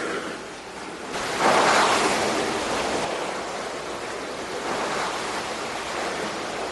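Sea waves washing, a steady rushing noise with a louder surge about a second and a half in.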